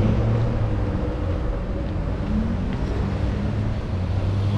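Road traffic passing close by: motor vehicles driving on the road, a steady low engine hum.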